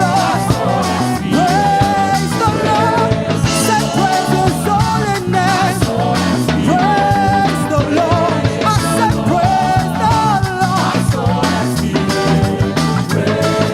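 Live gospel praise-and-worship band playing with a steady beat, a wavering lead melody line over full backing.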